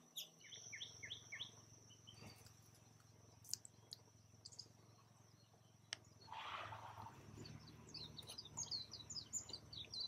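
Faint birdsong: a run of quick chirps at the start and a busier string of chirps near the end, over a steady high tone. A short soft rustle of leaves comes about six and a half seconds in, as the camera moves through bean plants.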